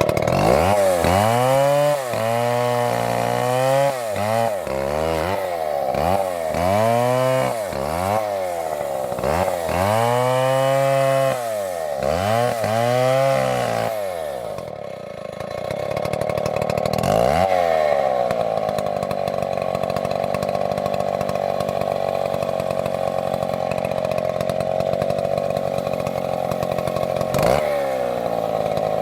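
Chainsaw engine revved up and dropped back about eight times in quick succession, then held at a steady high pitch through a long cut, sagging briefly twice.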